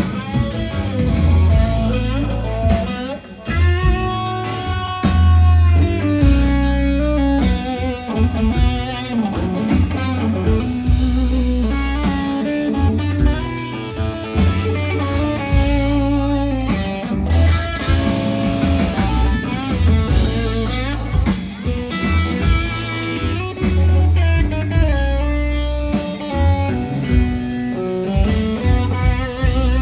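Live band playing an instrumental break in a slow, bluesy ballad: an electric guitar carries a lead line with bent notes over bass and drums.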